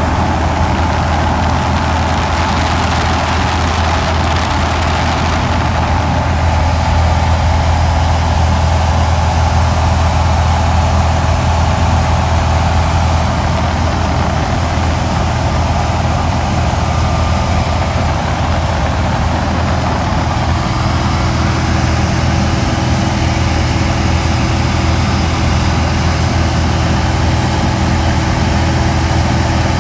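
Steady drone of a single-engine light aircraft's engine and propeller in cruise, heard inside the cabin with rushing air noise, unchanging throughout.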